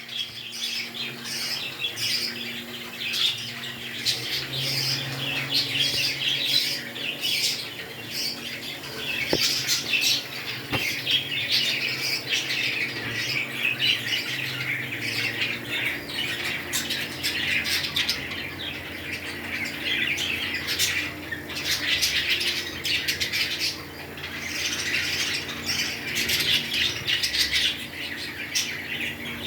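Pet parrots chattering and squawking continuously in a dense stream of high chirps and squawks.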